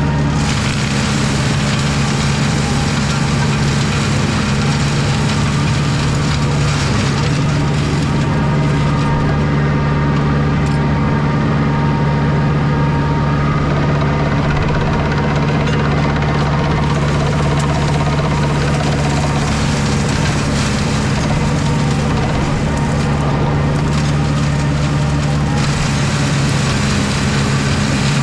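Small tractor's engine running steadily under heavy load while its mulcher shreds dense, woody blackberry brambles, a continuous engine drone under a thick shredding noise. The high part of the noise eases for several seconds midway.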